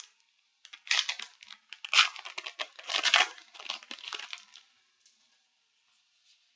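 Foil Yu-Gi-Oh! booster pack wrapper being torn open and crinkled. It starts about a second in and stops about four and a half seconds in.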